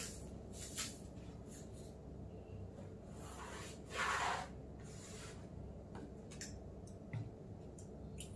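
Masking tape being pulled off its roll and pressed onto a canvas board: a crackly rasp of tape coming off the roll about three to four seconds in, with light rubbing and a few small clicks around it.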